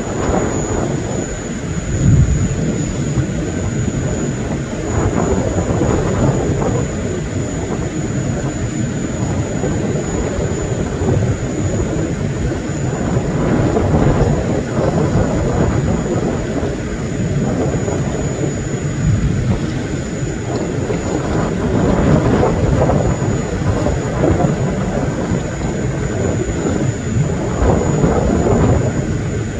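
Wind buffeting the microphone: a loud, gusty low rumble that swells and eases every second or two, with a sharp gust about two seconds in.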